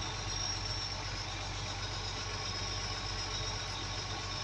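Caterpillar 966H wheel loader's diesel engine idling steadily, heard from inside the cab, while the lift arms are lowered for a linkage calibration.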